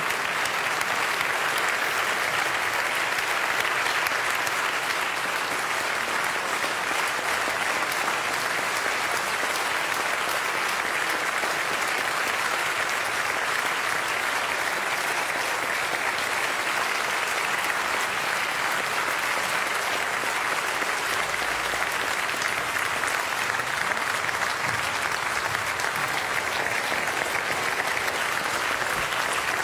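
Large audience applauding, a steady dense clapping that holds at an even level.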